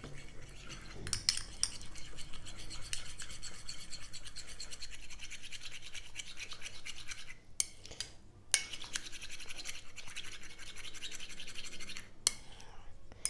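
Metal spoon briskly whisking a thick mayonnaise and olive oil mixture in a small bowl, a fast run of scraping clicks against the bowl as the mixture is beaten smooth and creamy. The whisking pauses briefly about seven seconds in and again near the end.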